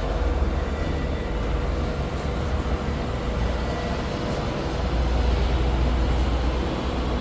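Arc welding on stainless steel, laying the first pass: a steady noisy arc over a strong low hum, a little louder about five seconds in.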